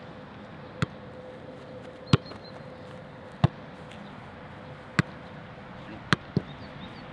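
Football being kept up in the air as players pass it between them: a sharp thud of each touch on the ball, roughly every second and a quarter, six in all, the last two close together near the end.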